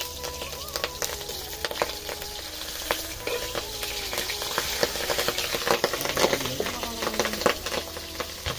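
Food frying in hot oil in a pan, a steady sizzle, stirred with a spatula that gives many short scraping clicks.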